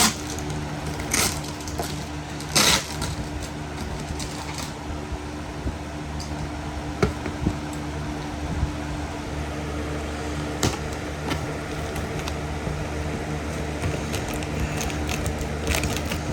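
Cardboard shipping box being handled and opened by hand: scattered scrapes, rips and knocks, the strongest about one and three seconds in, over a steady low mechanical hum.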